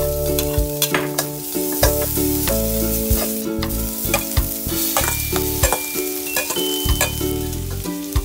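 Minced ginger and garlic sizzling in hot oil in a wok, then chopped pickled mustard greens stir-fried in it. A steady sizzle runs throughout, with frequent sharp clicks and scrapes of the utensil against the pan.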